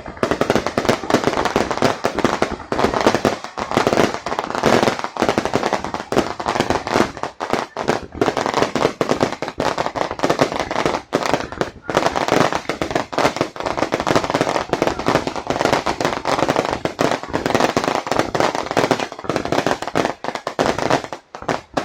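Fireworks display: a dense, continuous crackle of many rapid bursts and bangs, with brief lulls about halfway and near the end.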